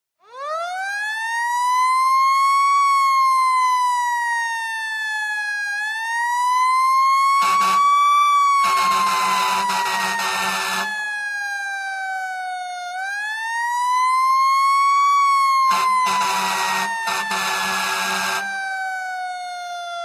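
Fire truck siren winding up from a low pitch, then wailing slowly: each rise is quick and each fall is long. Twice, about seven and sixteen seconds in, a short horn blast and then a longer one of about two seconds sound over the wail.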